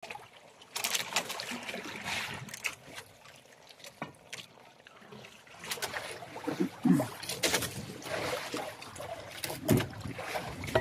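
Liquid poured from a plastic bottle into a hot, steaming pot of cooked squid, trickling and sizzling at first. Scattered clicks and knocks follow later.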